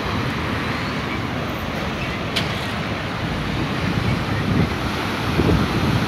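Ocean surf breaking on a rocky shore, a steady rushing wash of water, with wind buffeting the microphone in low gusts that grow stronger near the end. A brief click sounds a little before the middle.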